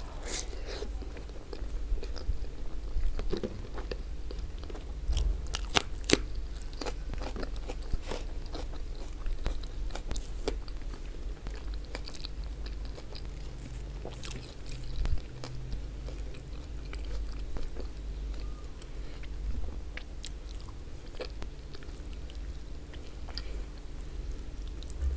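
Close-miked mouth sounds of a person biting and chewing oxtail stewed in tomato sauce. Sharp clicks and crunches are scattered irregularly throughout, the loudest about a quarter of the way in.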